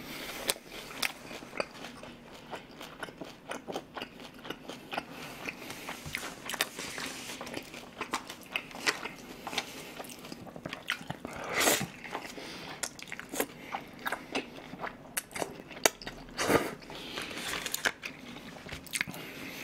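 A person chewing food close to the microphone: many short wet clicks and smacks of the mouth, with a couple of louder, longer mouth noises near the middle and later on.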